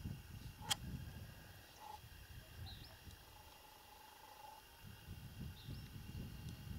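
Faint open-field ambience: low, gusty wind rumble on the microphone, one sharp click under a second in, and a few faint, short, high bird chirps.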